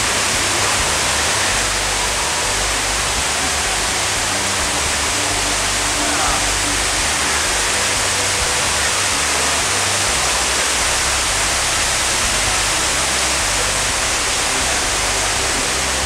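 Steady, even rushing of falling water.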